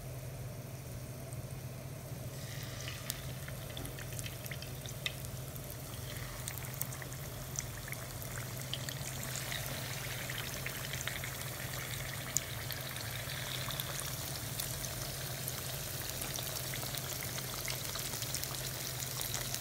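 Flour-coated chicken wings and drumsticks frying in hot oil in a pan. A faint sizzle from a small test piece of coating grows denser and crackles more as more pieces go into the oil over the first several seconds. A steady low hum runs underneath.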